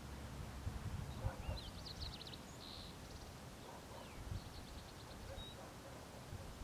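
Small birds chirping in two short, fast trills and a few single high notes, over a low outdoor rumble.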